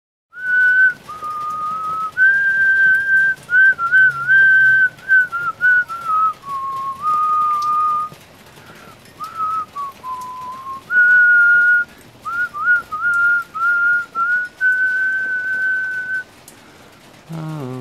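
A person whistling a tune, a clear melody of held notes and quick little turns, in phrases with short pauses between them; it stops near the end.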